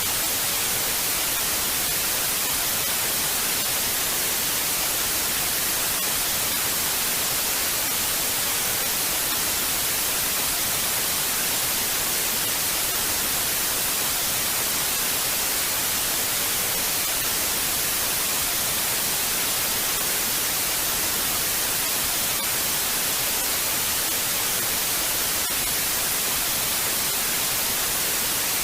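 Television static: a steady, unbroken hiss of white noise, brightest in the high frequencies.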